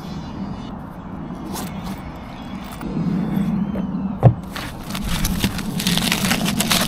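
Aluminium foil crinkling and crackling as a foil-wrapped sandwich is unwrapped by hand, starting in the second half, after a single sharp knock on the wooden picnic table. A steady low hum runs underneath.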